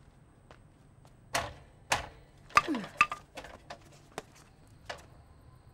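Irregular thuds, knocks and slaps, about eight in four seconds, as a live snakehead fish is struck and flops on a wet tiled floor. A short cry falls in pitch about halfway through.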